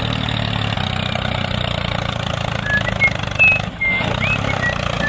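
Tractor engine running steadily, with a few short high chirps over it in the second half.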